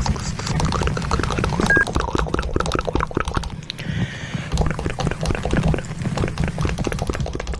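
Cartoon sound effect of liquid bubbling and gurgling: a dense, irregular patter of small pops over a low hum, easing briefly about halfway through.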